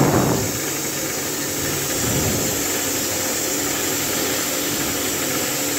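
Two-stage reciprocating air compressor running steadily while compressed air hisses out of its opened outlet valve, with a louder rush as the valve opens at the start. The tank pressure is being bled down toward 2 kg/cm².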